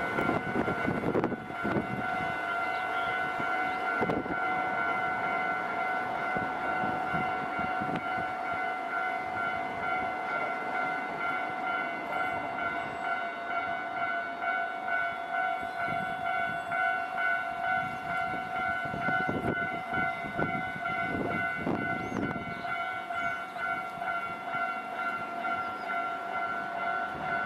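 Japanese railway level-crossing alarm ringing without a break in a steady, evenly pulsing electronic tone. A Nankai Electric Railway train's wheels clatter across the crossing, strongest near the start and again about 20 seconds in.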